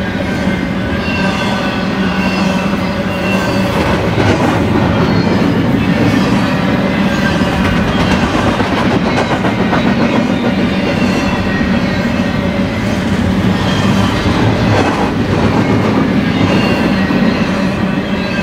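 Double-stack intermodal freight train's well cars rolling past: a steady rumble and clatter of steel wheels on rail, with thin high wheel squeals coming and going.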